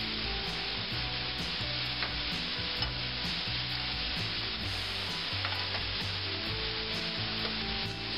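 Sliced mushrooms frying in a stainless steel skillet over high heat: a steady, loud sizzle.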